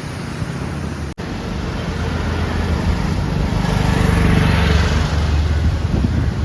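A motor engine passing close by, growing louder to a peak about four seconds in and then fading, over wind and surf noise.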